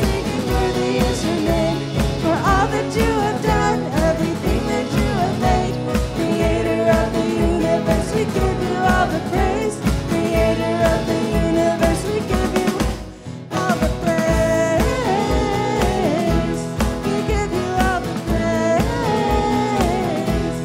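Worship band singing a praise song: lead and backing vocals over electric and acoustic guitars, keyboard and a steady kick-drum beat. The music drops out briefly about two-thirds of the way through, then comes back in.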